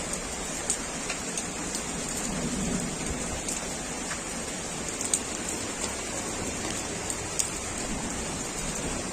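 Hailstorm with heavy rain: a steady downpour hiss, with scattered sharp clicks of hailstones striking a hard surface.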